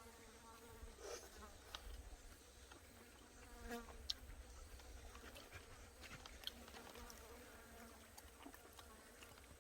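Faint buzzing of a flying insect passing close by, loudest about a second in and again near four seconds, with a few small clicks scattered through.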